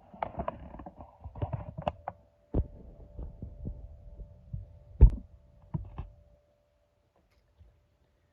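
Sharp knocks and clanks of a metal Craftsman toolbox being handled as its bent lid is worked on. They come irregularly for about six seconds, the loudest about five seconds in, then stop. A steady hum runs underneath.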